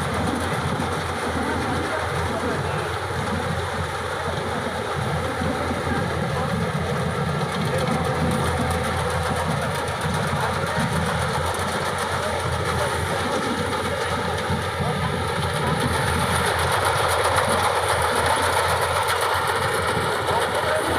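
Yanmar AW70GV combine harvester running as it works, its diesel engine and cutting and threshing machinery making a steady mechanical noise that grows a little louder over the last few seconds.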